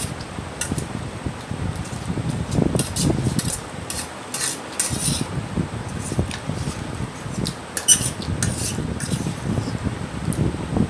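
Metal fork clinking and scraping against a steel plate of noodles, in short irregular clicks, with close-up chewing in between.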